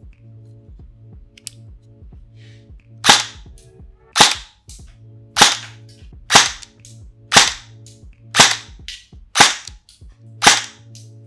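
Arcturus Karambit PDW airsoft electric gun (AEG) fired in single shots: eight sharp reports about one a second, starting about three seconds in.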